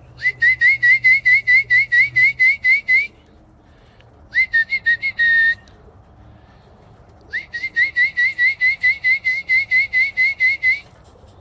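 A pigeon feed whistle blown in fast runs of short chirping notes, about five a second: a long run, a short burst ending in one held note, then another long run. It is the feeding signal that calls Birmingham Roller pigeons down into the trap.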